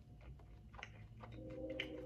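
Faint chewing with small mouth clicks as a person eats chicken wings. A low hum comes in a little past halfway.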